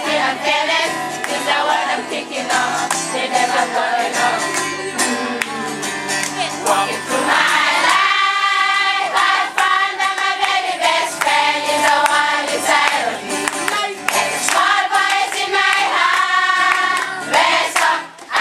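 A group of students singing a song together, led by a man's voice and a strummed acoustic guitar.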